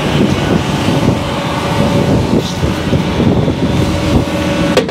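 Heavy quarry plant running steadily with a low rumble, while wind buffets the microphone. There is one sharp knock near the end.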